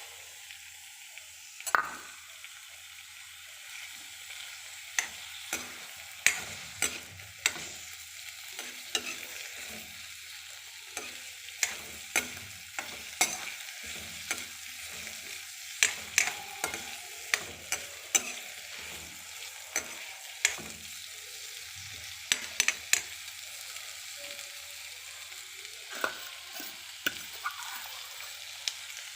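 Onion, ginger and garlic sizzling in a little oil in a kadai (Indian wok), with a steady hiss. They are being stirred, and the utensil clacks sharply and irregularly against the pan.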